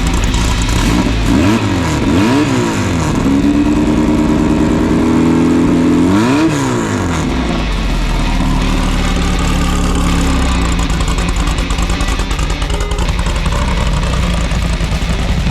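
Class 9 off-road buggy's air-cooled VW engine revving as it drives, its pitch climbing and dropping sharply several times in the first seven seconds, then running more steadily.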